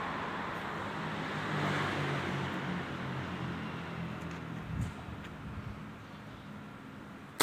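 A motor vehicle's engine running close by as it passes, loudest about two seconds in and slowly fading away.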